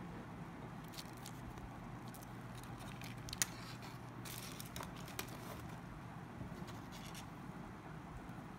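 Faint clicks and scrapes of small phone parts being handled during disassembly, with one sharper click about three and a half seconds in, over a steady low hum.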